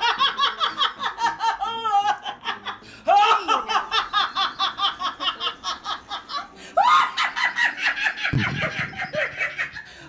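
A woman's loud belly laugh in three long bouts. Each bout is a fast string of 'ha' pulses that starts high and drops in pitch.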